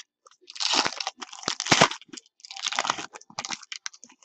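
A foil trading-card pack wrapper being torn open and crinkled, in two main crackly bursts.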